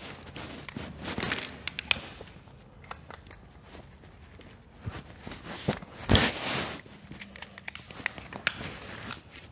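Climbing rope, harness and carabiners being handled: rope and webbing rustling, with sharp metal clicks of carabiners and a heavier thump about six seconds in. The cow's tails are being weighted from the anchor to seat and tension their barrel knots.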